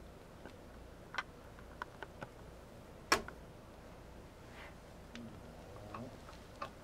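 A kitten kneading a plush stuffed toy, its claws catching in the fabric: faint scattered clicks and ticks, with one sharper click about three seconds in.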